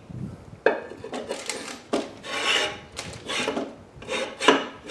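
A run of short, rough metal-on-metal scrapes as the pump's inner parts are worked by hand inside the opened housing, a part that had been stuck.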